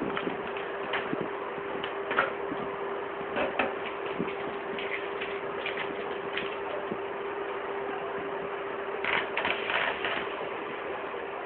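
Hands handling a new HP Deskjet 1515 inkjet printer's plastic body and packing: scattered clicks and knocks, with a dense flurry of handling noise about nine seconds in. A steady hum runs underneath.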